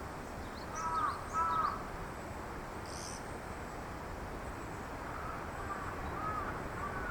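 Wild birds calling: two loud harsh calls about a second in, then a run of fainter repeated calls in the second half, with thin high chirps from small birds.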